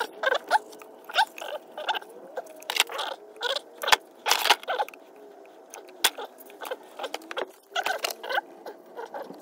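Hand work among the hoses and fittings around the intake manifold: an irregular run of clicks, rattles and short squeaks as rubber hoses and plastic parts are gripped, wiggled and pulled.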